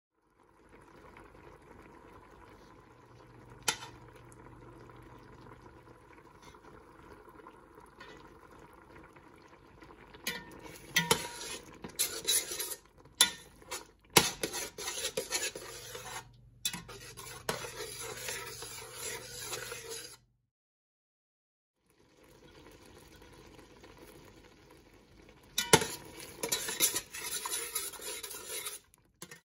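Metal spoon stirring tomato paste into tomato sauce in a stainless steel pot, scraping and clinking against the pot's sides. The stirring comes in two bursts, one about ten seconds in and a shorter one near the end, over a faint steady hum.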